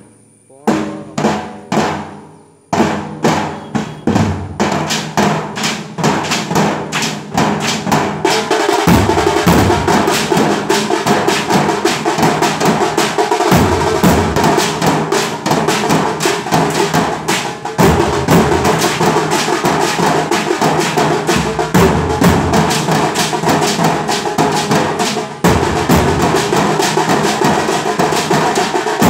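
Nasik dhol ensemble played with sticks: a few spaced single strokes at first, then a fast beat that thickens into dense, continuous drumming about a third of the way in.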